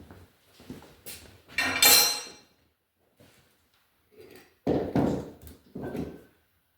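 Workshop handling noises: scattered knocks and clanks of metal being moved, with a loud metallic clatter about two seconds in, then two heavier thumps near five and six seconds.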